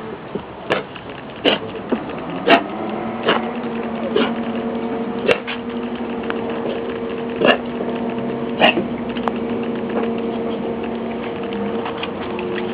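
Boxer/Labrador mix puppy coughing in about eight short, sharp hacks at irregular gaps: the lingering cough left after a bad bout of pneumonia. A steady hum runs underneath from about two seconds in.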